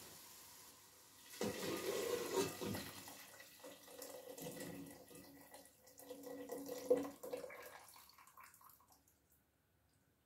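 Potato cooking water poured from a stainless steel pot into a pot of softened vegetables, a steady splashing pour that starts about a second in and trickles away to nothing about eight or nine seconds in.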